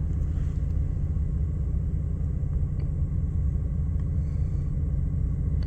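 2006 Jeep Liberty's 3.7 L V6 idling with a steady low rumble after new coils and injectors, no longer misfiring as it did before the repair.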